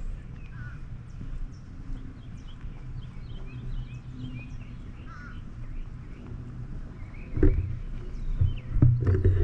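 Many small birds chirping in short, quick calls over a low steady rumble, with a few knocks near the end.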